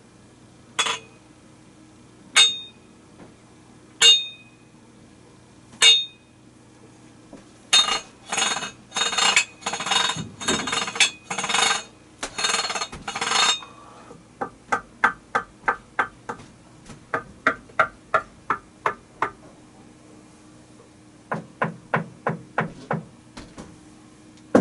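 A series of sharp knocks and strikes. First come four single hard hits, spaced well apart. Then a run of rougher, noisier strokes follows, and after that comes quick, even tapping in two runs.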